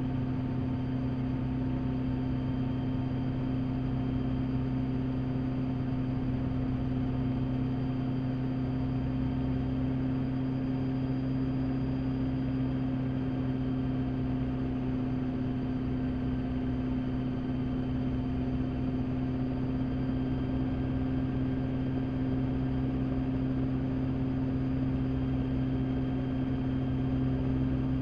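Rotorway kit helicopter in flight, heard from inside the cockpit: the engine and rotors make a steady, unchanging drone with a strong low hum.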